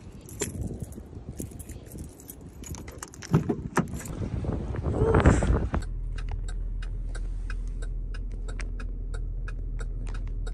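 Footsteps and handling clicks while walking, then the inside of a car: the engine's steady low hum with a turn signal ticking regularly, about two ticks a second.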